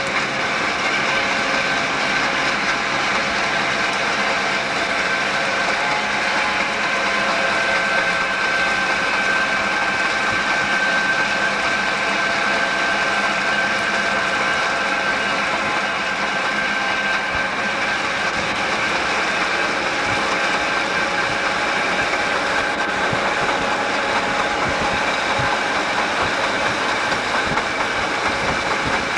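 Southern Pacific EMD GP9 diesel locomotives running at a steady speed, heard from a car pacing alongside. Their engine drone is mixed with steady wind and road noise.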